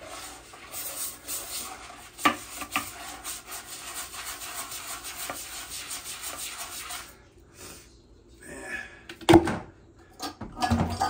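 Toilet brush scrubbing a foamy porcelain toilet bowl, the bristles rubbing and scratching in quick strokes for about seven seconds. It goes quieter, then a single loud knock comes about nine seconds in, and water starts rushing as the toilet flushes at the very end.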